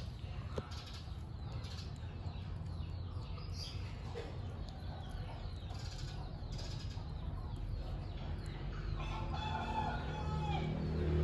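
A rooster crowing once near the end, a drawn-out call of about a second and a half, over a steady low rumble.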